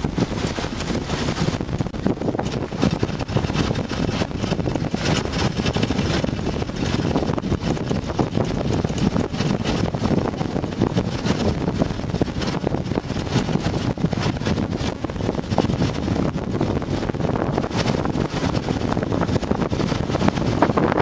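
Wind rumbling on the microphone, with water rushing along the hull of a small sailboat under sail, the level flickering up and down with the gusts.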